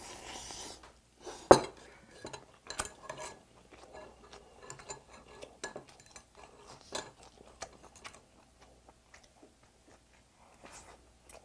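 Eating at a table: metal chopsticks and a spoon clink and scrape against a ceramic bowl and a metal pot, with chewing between. There are scattered light clicks, and one sharp clack about a second and a half in is the loudest.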